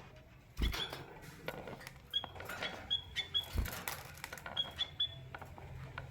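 Short high chirp calls from a caged female canary and male white-headed munia, repeated several times, among scattered clicks and taps, with two dull thumps.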